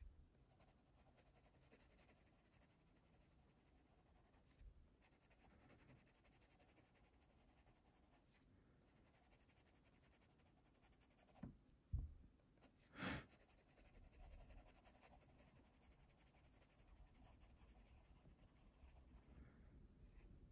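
Faint scratching of a Faber-Castell Polychromos colored pencil shading on paper, in short strokes with brief pauses. A soft thump and a short hiss come a little past the middle.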